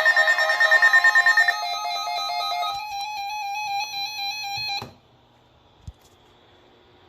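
An electronic melody of bright synthesized notes stepping from pitch to pitch, which cuts off suddenly about five seconds in, leaving faint hiss and hum. A single soft thump follows about a second later.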